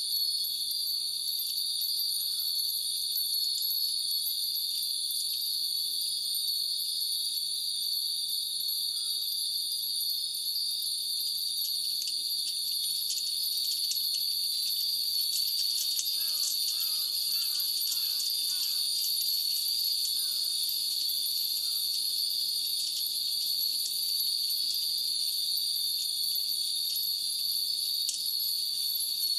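Hundreds of Japanese wind bells (fūrin) tinkling in the breeze over a steady high drone of insects, likely cicadas. The tinkling is busiest around the middle.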